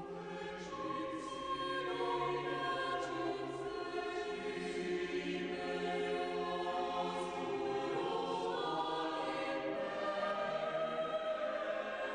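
Background choral music: slow, sustained voices holding long chords that change every few seconds.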